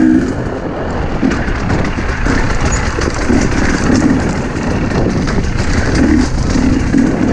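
Husqvarna enduro dirt bike's engine running at low revs, its note coming and going with the throttle every second or so, while the bike clatters over loose rocks.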